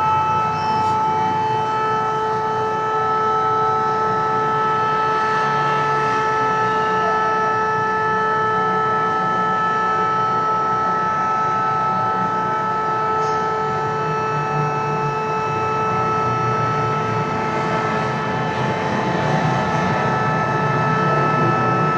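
Civil defense air-raid siren sounding a steady tone that holds its pitch without rising or falling, over a low background rumble.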